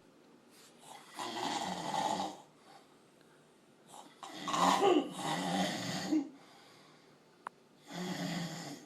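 A man snoring loudly in his sleep: three long snores a couple of seconds apart, the middle one the loudest.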